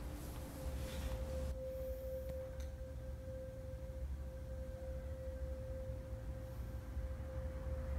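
A single steady pure tone held on one pitch, with a low rumble beneath it.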